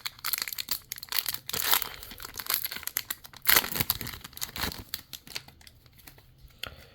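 Crinkling and tearing of a plastic trading-card pack wrapper as it is ripped open, a run of irregular rustles loudest about two and three and a half seconds in, then thinning out.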